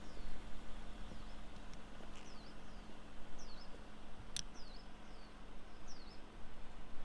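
A small bird chirping over and over, short sharp chirps roughly every half second, over a low steady rumble. One sharp click sounds a little past the middle.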